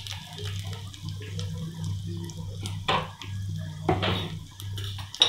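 Cumin, bay leaf, dried red chillies and asafoetida sizzling in hot oil in a kadhai during tempering, with a steady low hum beneath and a few sharp pops, one about three seconds in and another near the end.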